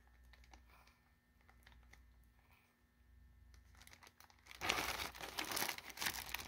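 Clear plastic zip-lock bags crinkling as they are handled: faint rustles and small clicks at first, then louder, busy crinkling from about four and a half seconds in.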